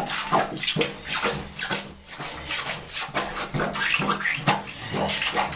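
Plunger working a clogged bathtub drain under standing water: repeated strokes, about two to three a second, each with a splash of water.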